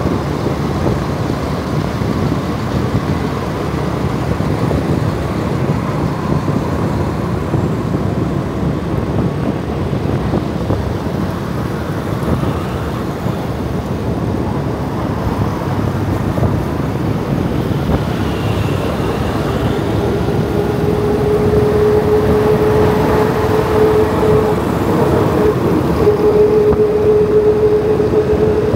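Motorbike riding through city traffic: a steady rush of wind, engine and road noise, with other motorbikes and cars around it. A steady whine from a nearby vehicle comes in about two-thirds of the way through and runs on.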